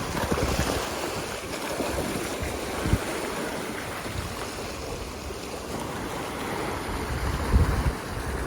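Ocean waves washing on the shore, a steady rushing surf. Wind buffets the microphone in low gusts, the strongest just before three seconds and again near the end.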